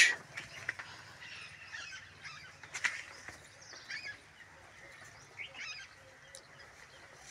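Poultry calling in short, scattered high calls a second or so apart, the loudest about three seconds in.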